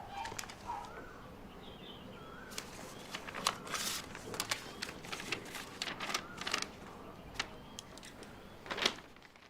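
Small birds chirping now and then, over a scatter of sharp clicks and rustles that are busiest in the middle.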